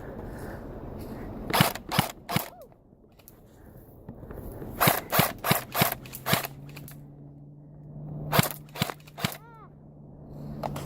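Airsoft guns firing single shots in quick runs: about three shots, then five, then four, each a short sharp report.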